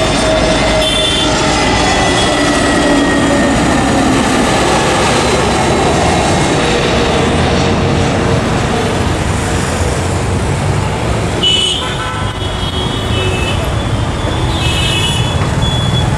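Loud, steady traffic noise with vehicle horns tooting briefly about a second in and several more times in the last few seconds.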